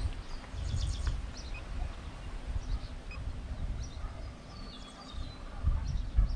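Outdoor ambience: a low rumble of wind on the microphone, with small birds chirping now and then.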